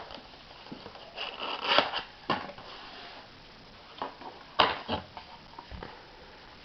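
Handling of a DVD box set and its packaging: rustling and scraping with a few sharp clicks and knocks, the loudest about four and a half seconds in.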